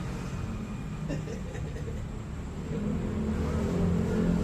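Low steady rumble of a motor vehicle's engine, growing louder over the last second or so.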